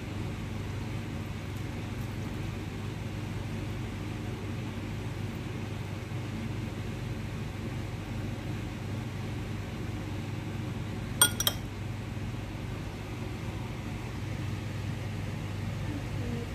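Steady low background hum, like a fan or appliance, with a sharp double clink about eleven seconds in: a metal fork knocking against a glass bowl.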